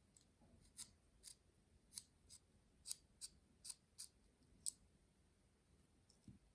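A series of about ten small, sharp clicks at uneven intervals, stopping about two-thirds of the way through.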